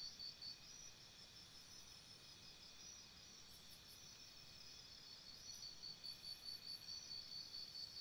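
Faint forest insect chorus: a high, evenly pulsing trill of about four pulses a second over a low steady hiss. The trill weakens early on and grows stronger again from about five seconds in.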